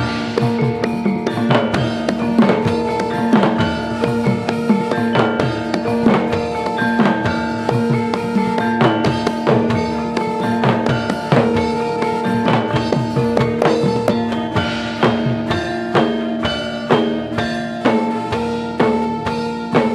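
Live Javanese gamelan music for a jaranan dance: steady ringing metal gong and bonang tones under dense, quick drum strokes.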